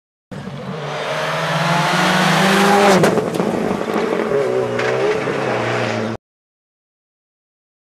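Rally car engine revving hard as it drives past on the stage, its pitch rising and dipping with the throttle and gear changes, with a couple of sharp cracks about three seconds in. The sound starts and cuts off abruptly, a little after six seconds.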